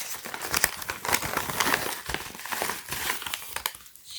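Crinkling and crackling of plastic packaging being handled and opened by hand, a dense run of irregular rustles that thins out near the end.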